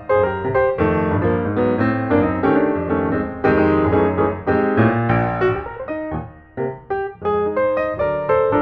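Background piano music, a busy run of quick notes with a couple of short breaks about two-thirds of the way through.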